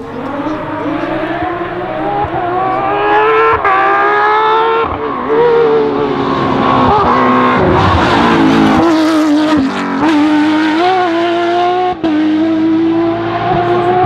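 Porsche 997 GT3 rally car's naturally aspirated flat-six at full throttle. The revs climb through quick gearshifts as it approaches, the engine is loudest as it passes about eight to nine seconds in, then it holds a steady high note as it pulls away round the bend.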